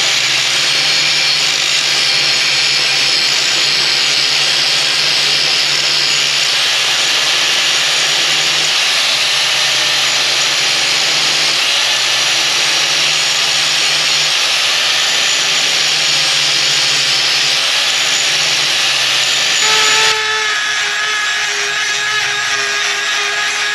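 Angle grinder grinding down a weld bead on a steel motorcycle frame, running steadily. About 20 seconds in it changes abruptly to a handheld rotary tool grinding the steel, with a steady whine.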